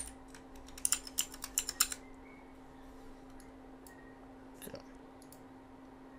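Computer keyboard typing: a quick run of key clicks about a second in, then a few faint scattered clicks, over a steady low hum.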